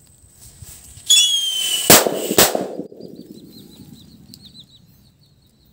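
A whistle bomb firecracker goes off: a shrill whistle, gliding slightly down in pitch, for just under a second, then a sharp bang. A second bang follows about half a second later, and a rumble fades away after it.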